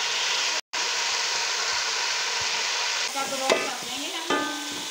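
Sliced onions sizzling loudly in hot oil in an aluminium pot, with a momentary break just under a second in. About three seconds in the sizzle eases, and a wooden spoon stirring the onions knocks twice against the pot, which rings briefly.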